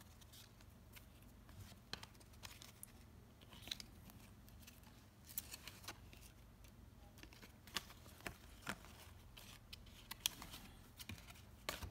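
Faint, irregular snaps and slides of 1993-94 Upper Deck basketball trading cards being flicked through by hand, each card pushed off the front of the stack.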